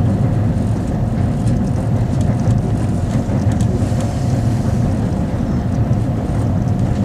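Alaska Railroad passenger train rolling across a steel truss bridge: a steady rumble of wheels on rails, with a faint steady tone over it.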